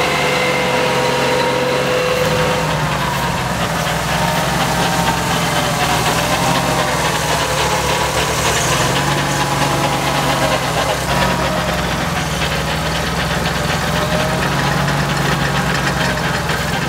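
UAZ off-roader's engine running steadily under load as it tries to pull out of deep mud, its pitch wavering a little.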